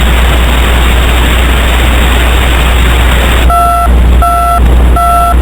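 Loud, steady broadcast static with a low hum underneath. About three and a half seconds in, it breaks into a run of short electronic beeps, three of them, each about a third of a second long and under a second apart.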